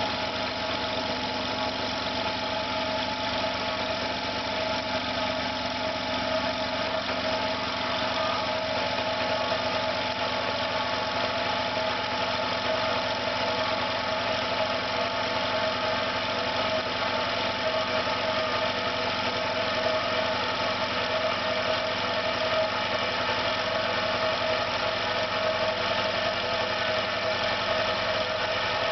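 Electric air compressor running steadily under load on its second start, pumping up the tank with a constant mechanical drone. Its motor smells of burnt plastic, and the owner believes it is damaged.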